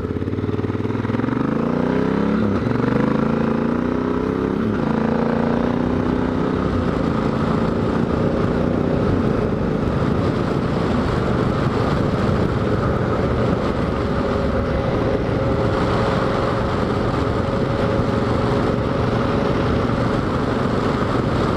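Honda Africa Twin's parallel-twin engine pulling away and accelerating, rising in pitch with two upshifts in the first five seconds, then holding a steady cruise. Steady rushing wind and tyre noise on the gravel road sits under the engine once it is up to speed.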